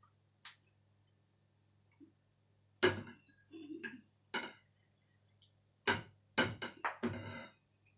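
Eating noises: several sharp clicks and knocks at irregular spacing, most of them in the second half, over a steady low hum.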